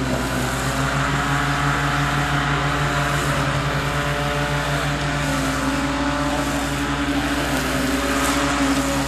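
Robotic lawn mower running as it mows across the grass: a steady mechanical hum.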